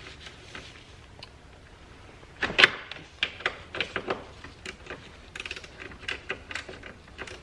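Hand ratchet wrench loosening a 13 mm bolt on the support brace, clicking irregularly in short strokes with a few metallic knocks. The clicking starts with a loud cluster about two and a half seconds in.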